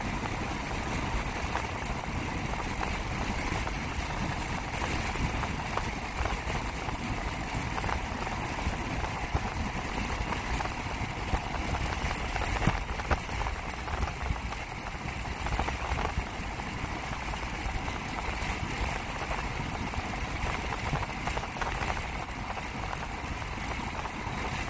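Steady engine and road noise of a car, heard from inside the moving vehicle.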